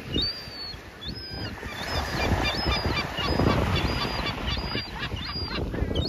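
Young gull giving a series of about a dozen high, thin whistling calls, each rising and then falling away, coming faster in the middle, over the wash of small waves breaking on the shore.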